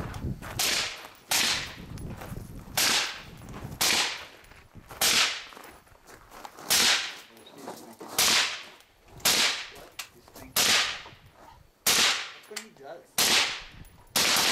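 Rifle shots fired at a steady pace, about one every second and a half, each with a short echoing tail, roughly eleven shots in all.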